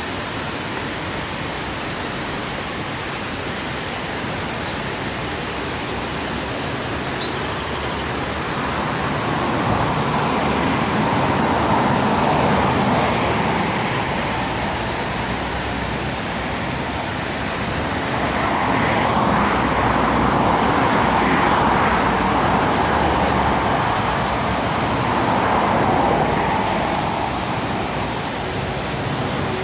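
Steady rush of river water pouring over a low dam, with cars passing on the riverside road, their sound swelling up three times from about a third of the way in.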